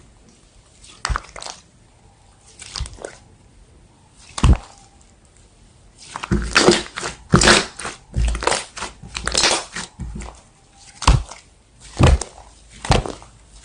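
Slime being pressed and squished by hand, making short crackly, crunchy pops. They come a few at a time at first, then in a quick run from about the middle, then at an even pace.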